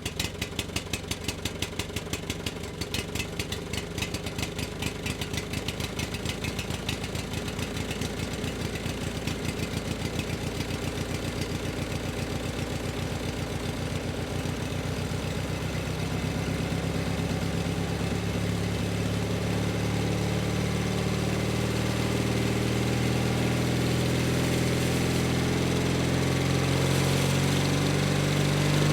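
A combustion engine running, its separate firing pulses audible at first, then its speed rising slowly and smoothly through the second half so the note climbs and grows a little louder.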